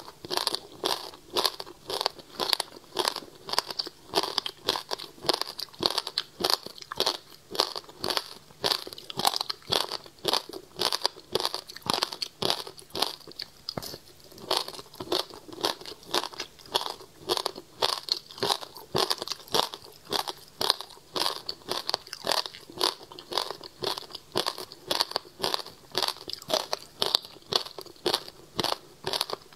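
Rapid, steady crunching as frozen passion fruit ice, pulp and seeds, is bitten and chewed close to a lapel microphone.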